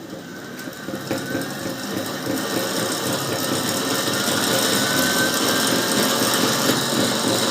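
Homemade dual-rotor axial flux electric motor with a 3D-printed rotor spinning up to speed: a mechanical whirr that grows steadily louder, with a faint thin whine rising in pitch partway through.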